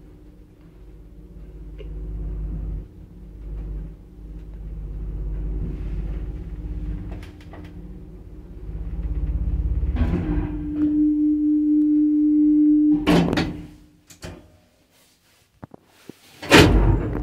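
A 1990 ZREMB lift travelling at 1 m/s: a low, uneven rumble of the car running in the shaft, then a steady hum for a few seconds as it comes to the floor, ending in one loud clunk as it stops. After a short near silence with a few small clicks, the doors clatter loudly near the end.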